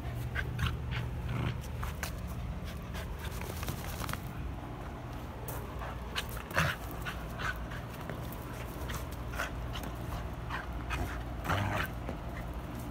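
Griffon–wirehaired pointer mix dog panting while it plays with a rope toy, with short sharp sounds now and then; the loudest come about six and a half seconds in and again around eleven and a half.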